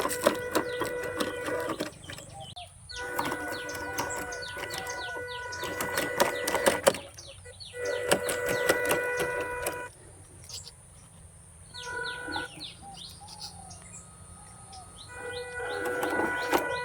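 RC dump truck's small electric motor and gearbox whining at a steady pitch in several bursts of one to four seconds, with dense clicking and crackling as it drives over the track.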